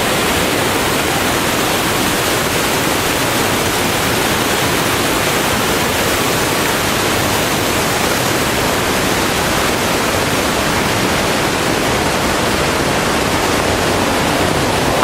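Waterfall's falling water, a loud, steady, unbroken rush of noise.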